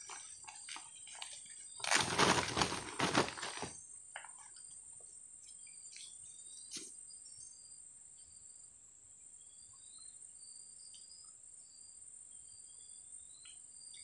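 A plastic bag rustling loudly for about two seconds, about two seconds in, as a freshly caught fish is put into it. Then a steady high insect drone goes on, with short high chirps here and there.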